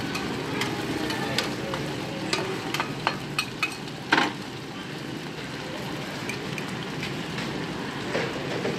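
Bột chiên cubes and eggs sizzling in oil on a large round frying pan, with metal utensils tapping and scraping against the pan, several sharp clicks between about one and four seconds in, the loudest just after four seconds.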